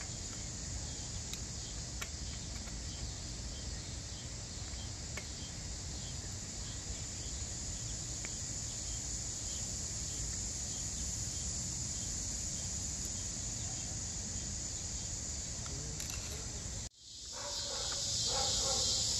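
Steady, high-pitched outdoor insect chorus, with a low rumble beneath it and a few faint clicks. About seventeen seconds in it drops out for a moment and comes back louder.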